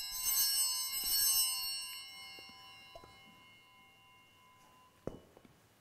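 Altar bells ringing at the elevation of the chalice after the consecration, a bright, many-toned ring that slowly fades away over the first few seconds. A short knock follows near the end.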